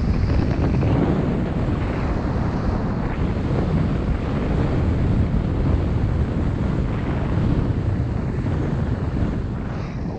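Wind rushing over the microphone of a camera moving fast down a ski slope, a steady low rumble, mixed with the hiss of sliding over packed snow.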